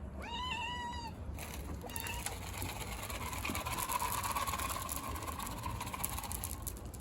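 A cat meows once, a short call that rises and then holds steady. After that, a rushing noise swells and slowly fades over several seconds.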